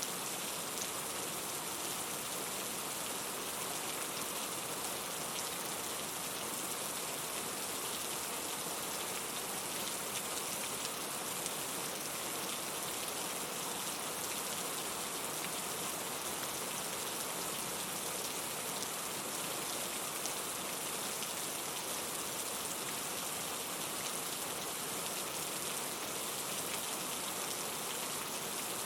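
Steady rain falling on a surface, a constant hiss with fine patter of drops.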